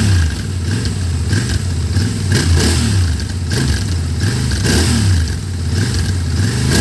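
Royal Enfield Interceptor 650's 648 cc parallel-twin engine being revved, its note rising and falling back several times.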